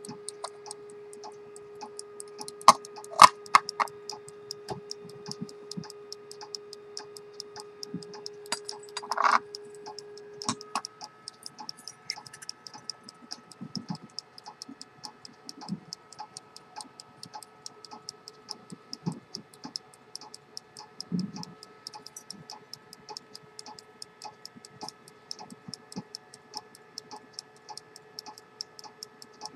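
Jean-Baptiste Baillon fusee verge pocket watch ticking rapidly and evenly, over a steady electrical hum whose pitch jumps higher about ten seconds in. A few louder clicks stand out about three and nine seconds in.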